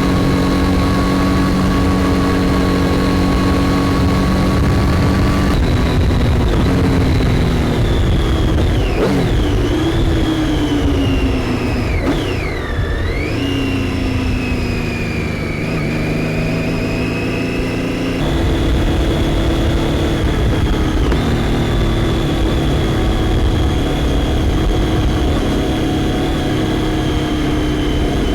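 Triumph Daytona 675's three-cylinder engine running at steady road speed under a rider. The pitch sags and dips through the middle before settling again, as the throttle eases off and comes back on.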